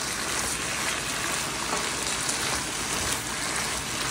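Beef, tomato and shredded cabbage sizzling steadily in a frying pan while a spoon stirs them.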